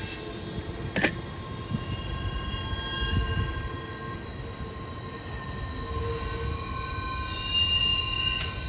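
Double-stack intermodal freight cars rolling slowly through a curve, their wheels squealing against the rail in several high, steady tones that come and go over a low rumble. A single sharp knock sounds about a second in.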